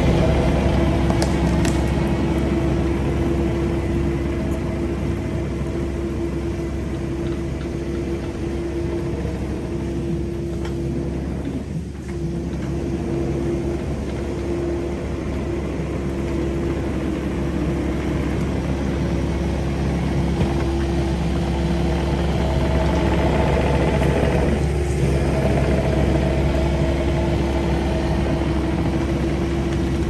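Kubota 080 excavator's diesel engine running steadily under work, a continuous drone with a held tone over it that dips briefly twice, near the middle and about five seconds before the end.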